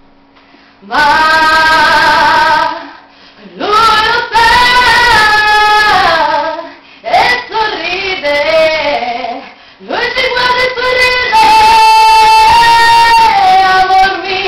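A young woman singing solo in four phrases with short breaths between them, the last note held long near the end.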